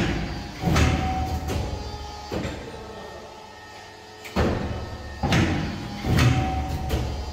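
Fuji 1320-4P paper and board cutting machine working, with about six mechanical clunks, each followed by a low hum that fades.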